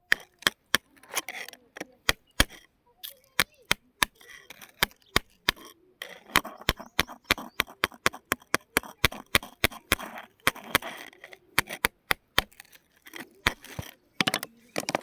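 Rapid, irregular sharp cracks and knocks of hard stone being struck, several a second, with short gaps at times.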